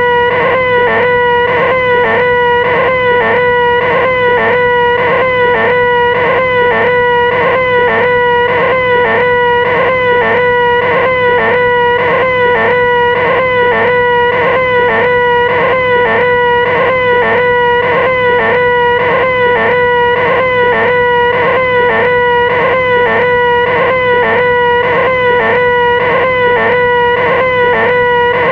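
A person's voice holding one long, loud, unbroken 'ahhh' at a steady high pitch, with a small regular wobble: the 'most annoying sound in the world'.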